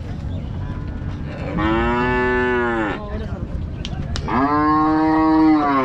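A cow mooing: two long moos, the first about a second and a half in, the second starting past the middle and running on to the end.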